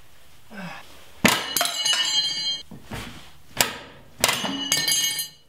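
Steel hand tools clanging against metal: a series of sharp clangs that ring on after each strike, a cluster starting about a second in and two more loud strikes near the end.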